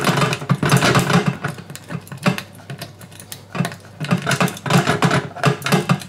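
A metal rake pick being worked up and down in a safe's wafer lock against a tension wrench: a rapid, irregular run of scratchy metallic clicks and rattles as the pick scrapes over the wafers.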